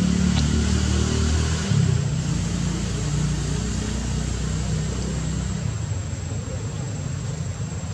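Motor vehicle engine running nearby, a low steady drone that shifts pitch about two seconds in and fades after about five and a half seconds.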